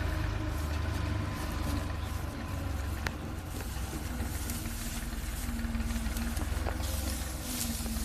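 Tractor engine running steadily, with a low hum, as it drives a front-mounted wheat reaper through the standing crop. There is a single sharp click about three seconds in.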